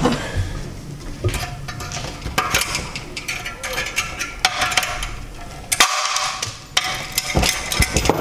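Scattered metallic clicks and knocks from a Yamaha R1 EXUP exhaust valve assembly being worked by hand on the bench, with a couple of brief whirs as its butterfly valve is moved.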